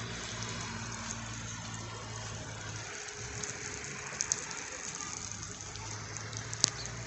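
Light rain falling, an even hiss with fine pattering, over a steady low hum. A few sharp clicks cut through it, the loudest near the end.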